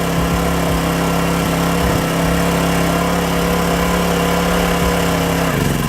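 Small petrol generator engine running steadily off load, its output cut because the overload trip went under a 1,000-watt heat gun. Its pitch drops slightly near the end.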